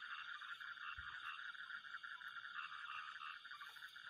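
A chorus of frogs calling, a dense fast trilling that goes on steadily and faintly.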